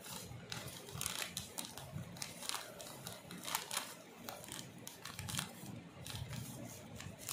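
Plastic salt packet crinkling and rustling in the hands in a run of short, irregular crackles as it is squeezed and tipped to get salt out.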